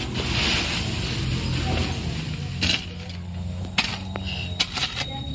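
A garden hoe chopping and scraping into soil mixed with rice husk, several separate strokes in the second half. Before that comes a rustling hiss of a woven sack being handled.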